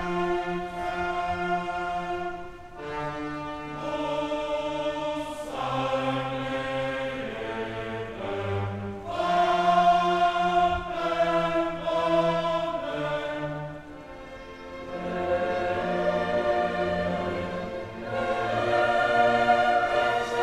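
Background music: a choir singing slow, held chords with orchestral backing.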